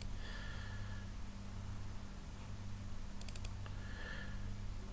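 A quick cluster of computer mouse clicks a little over three seconds in, over a steady low electrical hum.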